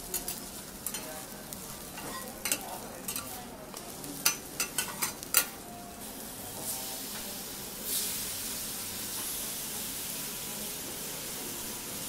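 Metal spatulas clicking and scraping on a hot steel teppanyaki griddle, with a quick run of sharp clacks around the middle. About eight seconds in, a steady sizzle sets in as thin slices of meat are laid on the hot plate.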